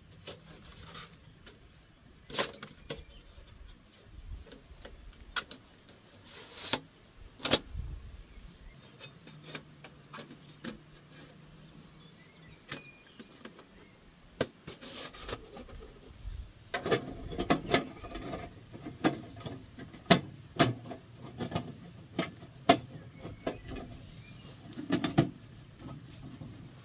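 Lightweight titanium camp stove being handled and put together: scattered metal clinks and knocks, coming thick and fast in the last third.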